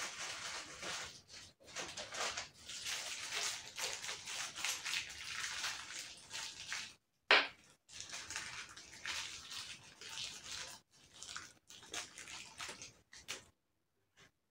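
Hands rustling and crinkling thin plastic in irregular bursts, with one sharp snap about seven seconds in.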